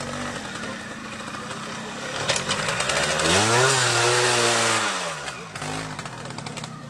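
Vintage trials motorcycle engine revving as the bike climbs a steep dirt bank. The pitch rises a little past three seconds in, holds for about a second and a half, then drops and fades as the bike pulls away.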